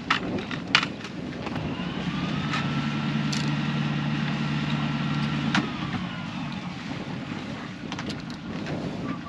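Sailboat's inboard engine throttled up for about four seconds and then eased back down while the boat is made fast at the berth. A few sharp knocks are also heard.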